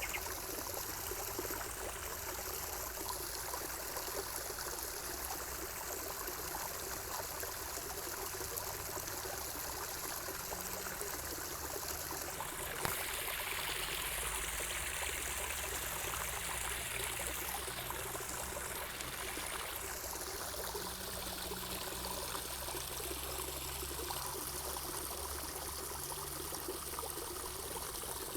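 Water running and trickling steadily, with one brief click about halfway through.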